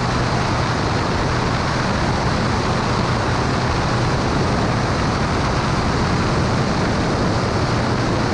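Cessna 210 Turbo Centurion's turbocharged six-cylinder engine and propeller running steadily in flight: a constant low drone under loud rushing noise.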